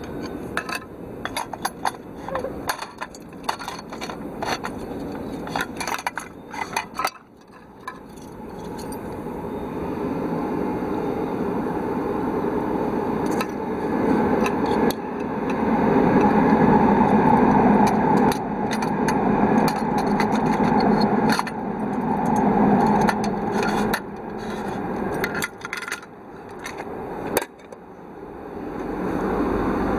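Metal clicks and scrapes as a British Army No. 7 cooker, a brass pressure stove in a metal case, is handled. From about eight seconds a loud rushing noise swells, then rises and falls.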